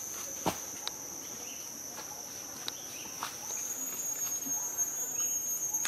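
Insects droning steadily at a high pitch, stepping slightly up in pitch about three and a half seconds in, with a few faint scattered clicks.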